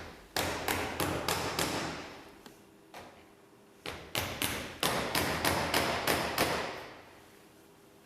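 Hammer driving nails into Onduline valley pieces: two runs of quick, ringing strikes, about three a second, with a single strike between them.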